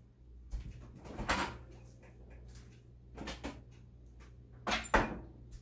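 Glass food-storage container being put away in a refrigerator: a few light knocks and bumps, then the loudest clunk near the end as the door is shut.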